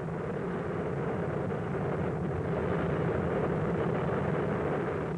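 Volcanic eruption, with lava spattering and steam billowing: a steady low rumble with no separate blasts.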